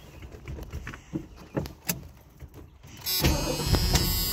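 Starter motor cranking the 1982 Mustang GT's 5.0-litre V8. It starts suddenly about three seconds in with a loud mechanical whine over a low rumble, after a few light clicks.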